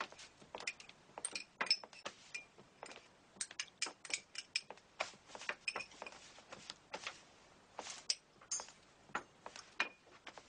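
Crockery and cutlery clinking on a table, a quick irregular run of light clicks and clinks as dishes are handled.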